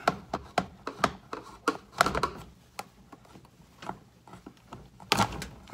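A flat screwdriver prying at the plastic barbed drain-hose fitting of a Fisher & Paykel DD603 dish-drawer dishwasher, giving irregular sharp plastic clicks and knocks as the O-ring-sealed fitting resists. Near the end there is a louder, rushing burst as the fitting comes free and the trapped water starts to dump out.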